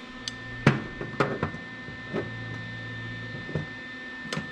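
Light clicks and knocks of metal parts being handled as a VW Beetle's accelerator pedal is fitted on its hinge. The loudest knock comes under a second in. A low hum comes and goes beneath them.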